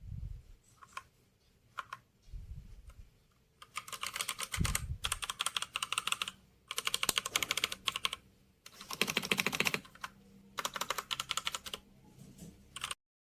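Typing on a RAKK DIWA 68-key mechanical keyboard with Outemu switches: a few single keystrokes, then four fast bursts of typing separated by short pauses. The sound cuts off suddenly near the end.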